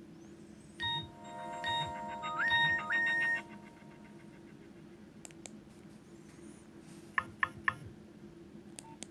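Nokia 2610 mobile phone playing a short built-in ringtone through its small loudspeaker: a bright electronic melody of held tones with a step up in pitch, lasting under three seconds. Near the end, three quick key beeps from the phone's keypad.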